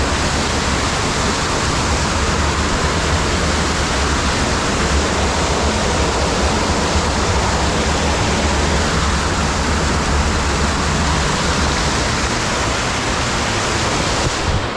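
Underground cave waterfall pouring and splashing close by: a loud, steady rush of falling water.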